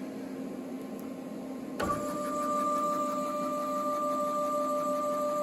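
Stepper motor of a home-built electronic leadscrew power feed driving a small lathe's carriage, a faint steady hum at first; about two seconds in there is a click and a louder steady two-tone whine starts and holds.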